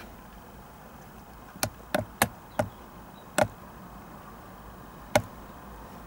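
Six sharp knocks at irregular intervals: a quick run of four, then one more, then a last one near the end, over a faint steady background hum.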